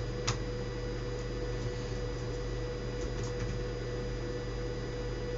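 Steady electrical hum with a constant tone, broken by a sharp click about a third of a second in and a few faint clicks around three seconds in.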